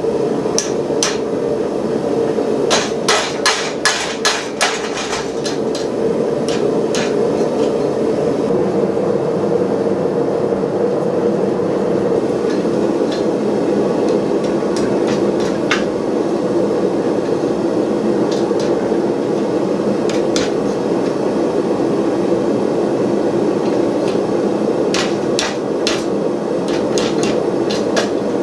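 Blacksmith's hammer striking hot steel bar stock on the anvil, forging a fire poker: a quick run of ringing blows a few seconds in, scattered single blows through the middle and another run near the end. Under the blows runs the steady roar of the gas forge.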